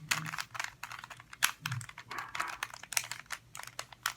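Plastic clicking and clacking of a Rubik's cube being turned by hand: quick, irregular snaps as the layers rotate.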